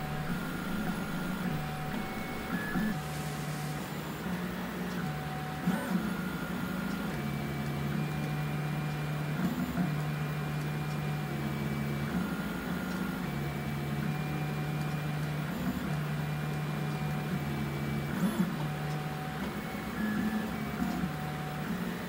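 Bad Robin 3D printer printing: its stepper motors hum in a low tone that jumps between a few pitches as the print head changes speed and direction, over a steady fan hiss, with a few light clicks.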